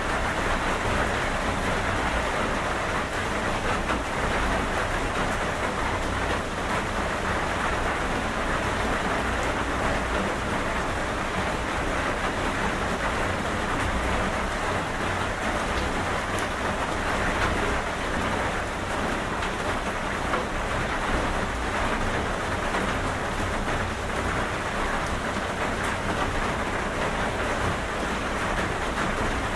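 Steady rain falling, a constant even hiss of drops with a low rumble underneath.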